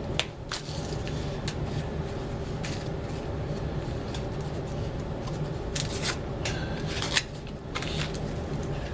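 Scattered small clicks and plastic crackling from hands handling laptop RAM modules and their packaging, over a steady low hum.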